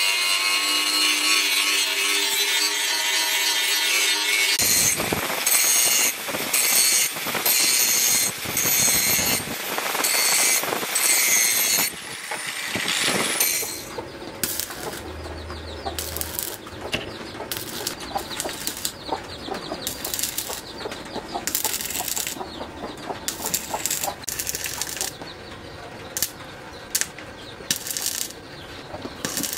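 Angle grinder with a flap disc grinding a steel leaf-spring axe head: a steady spin for about four seconds, then in uneven bursts as it is pressed on and lifted off. From about fourteen seconds, stick welding crackles and sizzles in many short runs as the rod is struck and broken off, quieter than the grinding.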